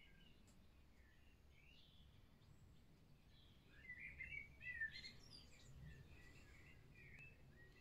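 Faint birdsong: quick chirping notes from small birds, busiest and loudest about four to five seconds in.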